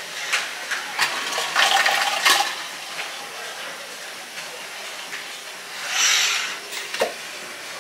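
Robot bartender at work mixing a drink: a run of clinks and clatter in the first couple of seconds, then a short hiss about six seconds in and a single knock shortly after.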